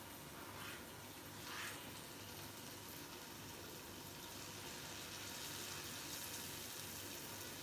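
Gulgule batter dumplings frying in hot oil in a pan: a faint, steady sizzle, with two brief louder hisses about a second and a second and a half in.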